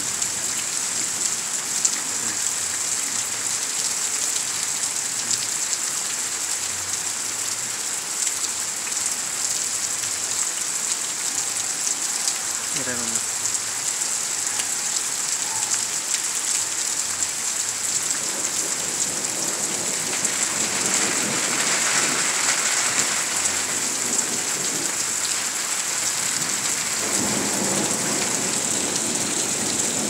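Heavy rain falling steadily in a thunderstorm, with thunder rumbling in the second half.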